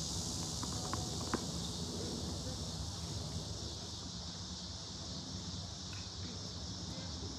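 Steady high-pitched drone of summer insects, over a low background rumble. Two short sharp clicks come about a second in.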